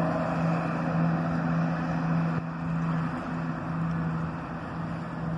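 Diesel passenger train running past, a steady engine hum under a constant rush of wheel and track noise.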